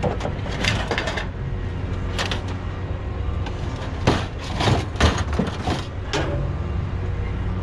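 Short knocks, clicks and rattles from scrap being handled while a cord is removed from a discarded item, over a steady low engine rumble.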